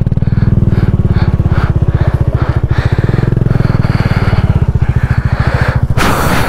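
Motorcycle engine running steadily at low revs as the loaded bike rolls slowly over a rough dirt track, with an even, rapid firing pulse. A short rush of noise comes near the end.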